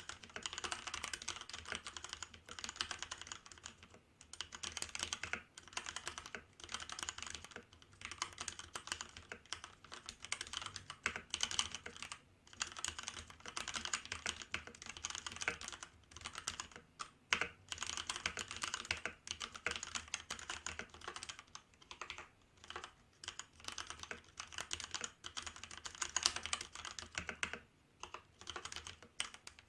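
Continuous typing on a Hansung GO187 mechanical keyboard with Kailh Red linear switches: fast runs of key clicks and clacks broken by short pauses every second or two.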